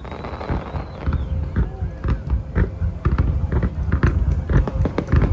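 Fireworks going off: a quick run of bangs and crackles that grows denser after about a second, with people's voices mixed in.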